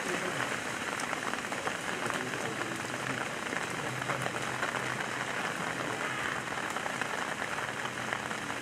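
Steady rain falling, an even hiss full of small drop ticks.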